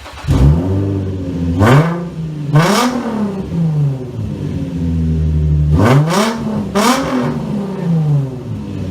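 2005 Infiniti G35's V6 breathing through a gutted stock muffler, firing up and settling into a steady, deep idle. It is blipped twice about two seconds in and twice more near seven seconds, each rev rising sharply and dropping back to idle.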